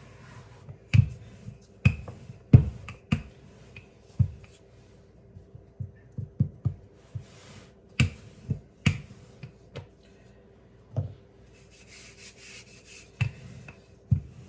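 Rolling pin working pie dough on a floured table: irregular knocks and thuds as the pin is rolled, pressed and set down, with a soft rubbing hiss near the end.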